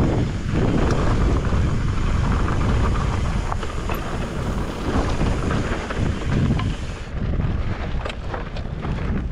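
Wind buffeting an action-camera microphone while a mountain bike rolls over a loose, rocky trail, with the tyres crunching on gravel and scattered clicks and rattles from stones and the bike.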